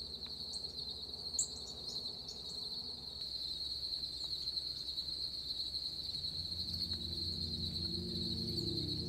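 Insect chorus, a steady high-pitched trill, with a few short higher chirps in the first couple of seconds. Low sustained music notes fade in over the last few seconds.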